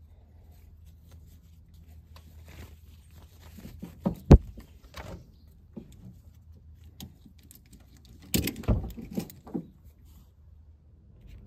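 Ratchet tie-down strap being handled: webbing rustling, with its metal hook and ratchet buckle clicking and knocking. One sharp knock comes about four seconds in, and a quick run of clicks and knocks near the end.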